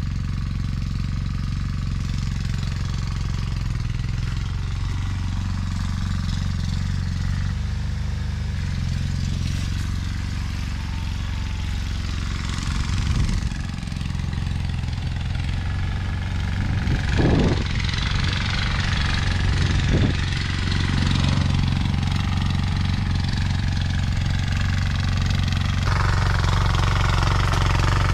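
Mini rotavator's small engine running steadily, with a few knocks in the middle.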